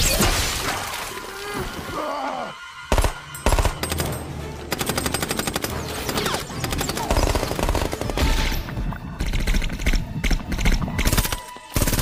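Film-soundtrack automatic rifle fire: two single heavy shots about three seconds in, then rapid bursts of automatic fire at about nine rounds a second, with film score music underneath.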